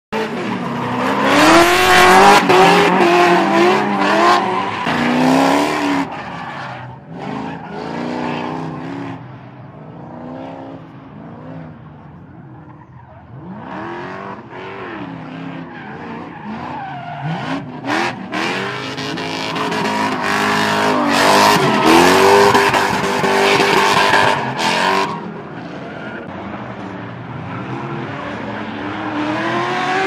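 Drift cars sliding under power, their engines revving up and down and their tyres squealing and screeching. It comes in stretches, loudest twice, with a quieter stretch in the middle.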